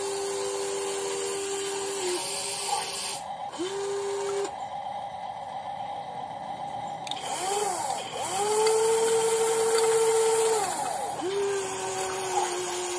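WLtoys 16800 RC metal excavator's electric motors whining in a series of separate runs as the boom, arm and tracks move. Each run begins with a quick rise in pitch and stops abruptly. The loudest and highest run starts about eight seconds in and lasts about two and a half seconds.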